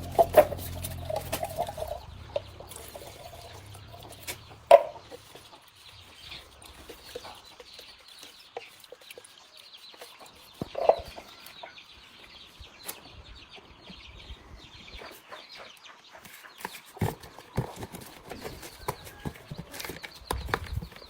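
Chickens clucking now and then among scattered light clicks and knocks. A low hum fades out about five seconds in.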